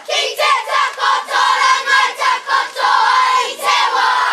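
Group of schoolgirls chanting in unison as a kapa haka group, a rhythmic, strongly accented Māori chant.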